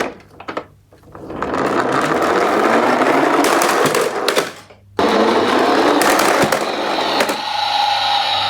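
Toy garbage-truck minicar running with a loud whirring rattle of its wheels, in two runs: the first builds up about a second in and dies away, the second starts suddenly about halfway through and takes on a steady hum near the end.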